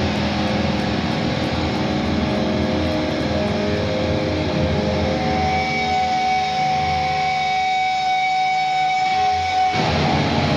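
Electric guitar left lying on the stage, ringing through the amplifiers as a loud sustained feedback drone with no beat. A steady high tone joins about halfway through, and the sound changes abruptly near the end.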